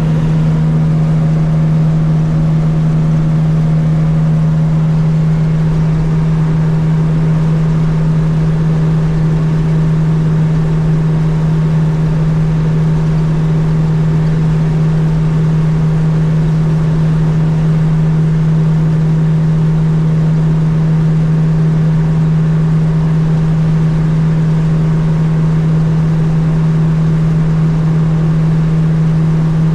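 Fiat 600 with a swapped 1.6 litre engine cruising at steady highway speed. It gives a loud, even drone that holds one pitch over tyre and road noise.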